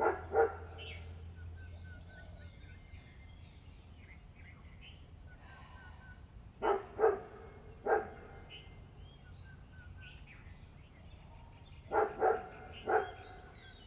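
A dog barking in three short bouts of two or three barks each, several seconds apart, with small birds chirping faintly in the background.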